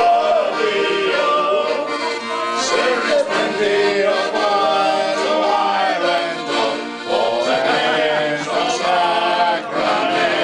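A man singing while playing a piano accordion, his voice carrying the tune over the accordion's sustained chords.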